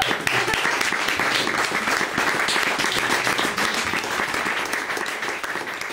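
Audience applauding after a song, a steady patter of many hands clapping that begins to thin out near the end.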